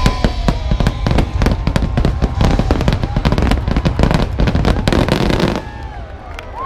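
A dense barrage of fireworks: rapid overlapping bangs and crackles that stop abruptly about five and a half seconds in.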